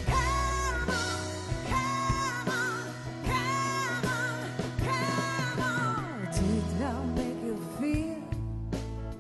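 Pop song played by a band, with a woman singing long held notes with vibrato over a steady bass line.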